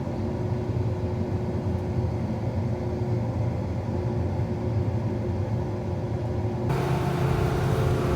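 Combine running steadily with a low rumble and a faint steady hum. About two-thirds of the way through, a brighter hiss suddenly joins it.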